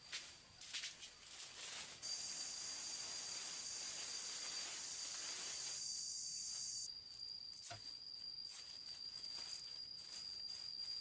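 Insects chirring outdoors: a steady high thin tone throughout, with a louder high hissing buzz from about two seconds in that stops near seven seconds, and a few scattered sharp clicks.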